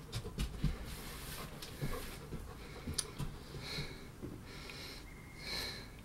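A person breathing and sniffing close to the microphone, with a few soft knocks and clicks from handling. There are two longer hissy breaths, in the second half.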